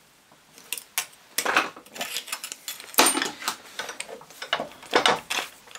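A short piece of copper pipe clinking and scraping against a steel bench vise and pliers as it is bent open and repositioned: a string of irregular metallic knocks starting about a second in.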